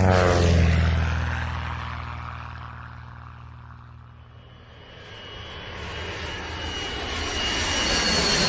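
Engine noise of passing vehicles. One sweeps past with a falling pitch right at the start and fades away over the next few seconds. Then another approaches, growing steadily louder with a high whine toward the end.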